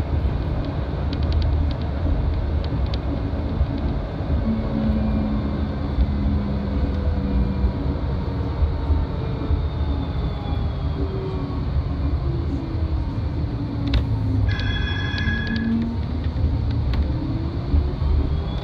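Flexity tram running on street track, heard from inside the cab: a steady rumble of wheels on rail. The traction motors' whine falls in pitch as the tram slows, then rises again as it picks up speed near the end. A short ringing tone sounds about two-thirds of the way in.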